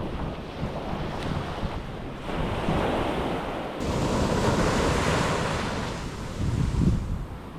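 Ocean surf washing onto a beach, swelling about two seconds in and again about four seconds in, with wind buffeting the microphone in low gusts.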